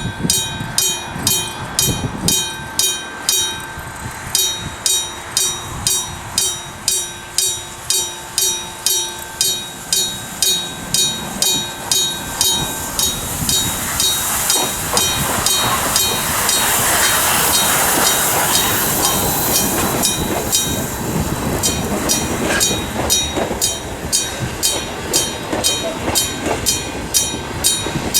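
Electric alarm gong of an old gong-type railway level crossing ringing with rapid, even strikes, about two to three a second, which means the crossing is active for an approaching train. About halfway through, a train passes over the crossing with a rising and fading rumble while the gong keeps ringing.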